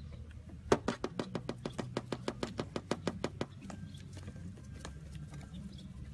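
White peacock shaking its fanned train in display, a rapid dry rattle of feather quills, about eight clicks a second, starting about a second in and lasting close to three seconds.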